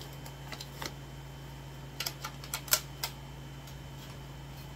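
A quick cluster of about six sharp clicks and knocks from a plastic embroidery hoop being unclipped and pulled off the fabric, over a steady low background hum.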